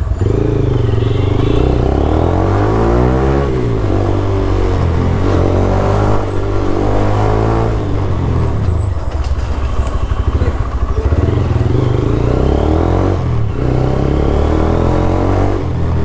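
Motorcycle engine under hard acceleration, its pitch climbing and then dropping sharply three times as it shifts up through the gears.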